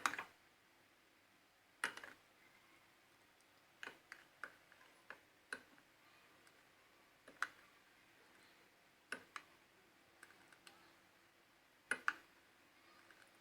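Light, scattered taps and clicks of a kitchen utensil against a dish, about ten in all, spaced a second or more apart with quiet between.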